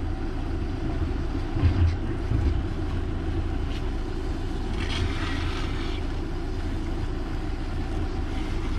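Septic-tank suction truck's engine and vacuum pump running steadily while sucking out a septic tank, with a couple of brief louder bumps about two seconds in.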